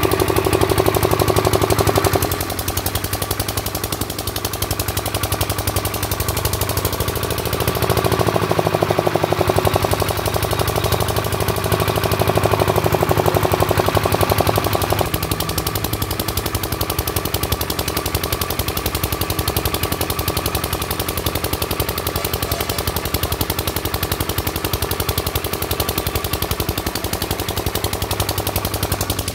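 Kirloskar 2.5 kVA generator's single-cylinder diesel engine running after a full repair, with a rapid, even beat of firing strokes. Its loudness steps down about two seconds in, rises again around eight seconds, and drops back about halfway through.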